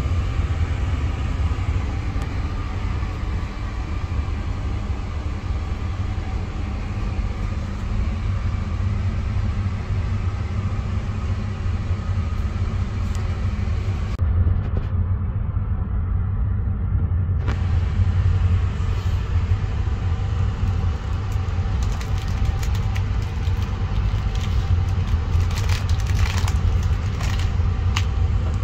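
Steady low rumble inside a passenger train carriage. Plastic packaging crinkles in the hand in the last few seconds.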